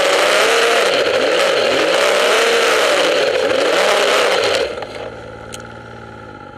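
Snowmobile engine being ridden, its pitch rising and falling again and again with the throttle under a loud rushing noise. About four and a half seconds in, the throttle comes off and the engine settles to a lower, steady idle.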